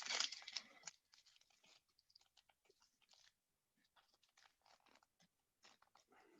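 Faint crinkling and rustling of a trading-card pack wrapper and cards being handled, busiest in the first second, then sparse soft crackles.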